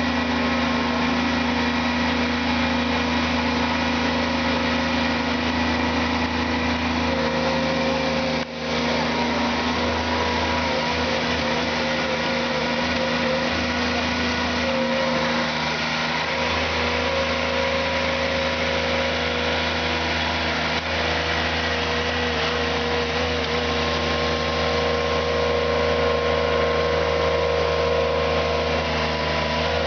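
Mini skid steer loader's engine running steadily while working a 400 mm auger. There is a brief drop in level about eight and a half seconds in, and the low engine note wavers for several seconds after that.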